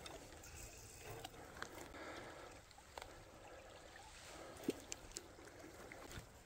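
Faint flowing river water, with a few short sharp ticks, the loudest about four and a half seconds in.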